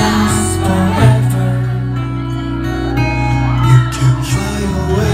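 Male pop vocal sung live into a microphone over a loud backing track with a deep bass line, played through a club's PA system.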